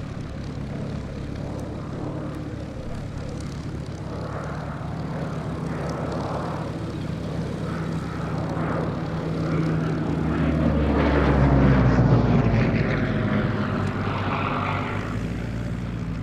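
Hawker Sea Hurricane's Rolls-Royce Merlin V12 engine and propeller in flight. It grows louder to a peak about twelve seconds in as the aircraft passes, then eases off with a drop in pitch.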